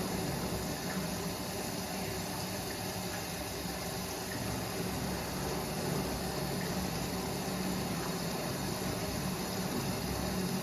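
Washing machine running mid-cycle on a cottons 40 °C programme: a steady hum with water noise.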